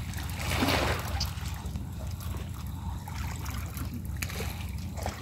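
River water splashing and trickling, with one louder splash about half a second in, over a steady low hum.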